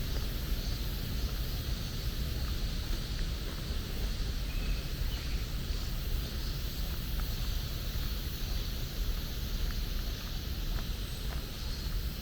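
Steady low rumbling outdoor background noise, with a few faint ticks and a brief faint high note about four and a half seconds in.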